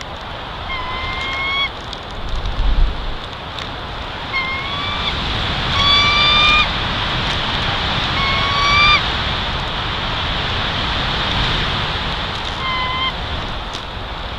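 Wind blowing steadily through the pines and over the microphone, gusting briefly about two seconds in. A bird gives a clear, slightly rising call about six times at uneven intervals, loudest around six and nine seconds in.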